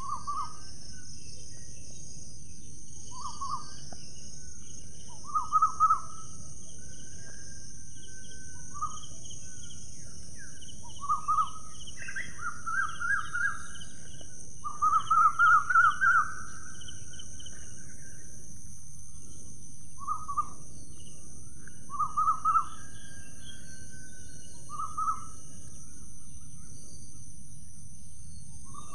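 A bird calling outdoors in short runs of quick repeated notes, about a dozen runs, the longest and loudest about fifteen seconds in, over a steady high-pitched insect drone and low outdoor rumble.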